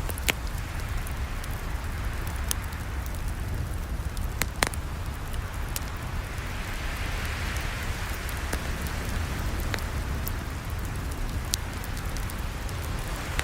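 Campfire burning with scattered sharp crackles and pops over a steady low rumble and hiss; the loudest pop comes a little before halfway.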